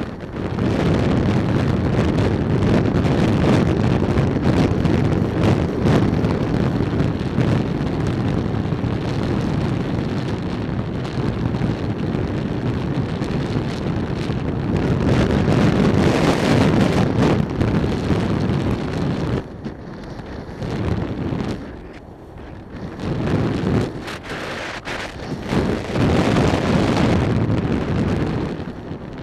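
Wind rushing over a helmet-mounted camera's microphone on a moving motorcycle, with the bike's engine and road noise underneath. The rush dips several times near the end as the bike slows.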